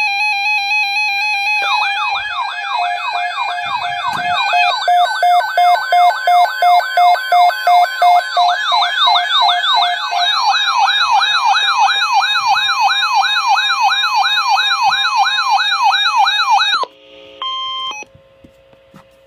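Several electronic siren and alarm tones sounding at once. A steady stepped tone gives way, about two seconds in, to a fast rising-and-falling wail, about two sweeps a second, layered over other warbling tones. It all cuts off abruptly near the end, and a short buzzy burst and a couple of brief beeps follow.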